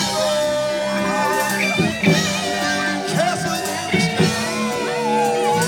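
Rock band music playing loudly, with sustained, bending electric guitar notes over a steady rhythm.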